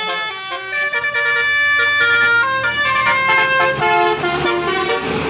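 A bus telolet horn playing a quick tune of changing notes, several horn tones sounding together, over the low steady running of the bus's engine.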